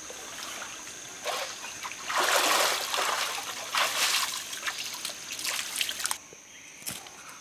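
Water splashing as a person wades through a shallow rock pool and climbs out. It comes in several surges, loudest about two seconds in, and stops about six seconds in.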